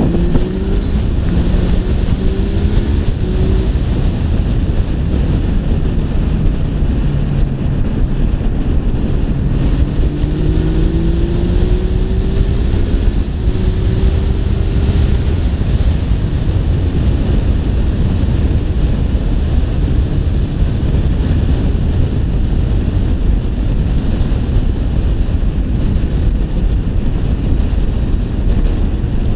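Yamaha XSR900's three-cylinder engine under way, rising in pitch as it accelerates in the first few seconds and again from about ten seconds in. Heavy wind buffeting on the microphone runs throughout and covers the engine in the second half.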